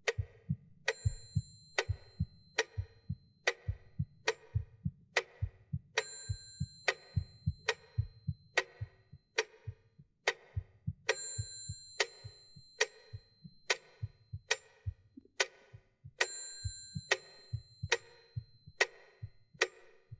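Steady sharp ticks, a little slower than one a second, over low, uneven heartbeat-like thumps, with a high ringing ping about every five seconds.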